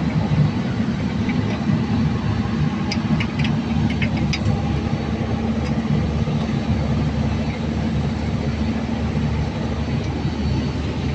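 A running engine's steady low hum, with a few faint clicks about three to four and a half seconds in.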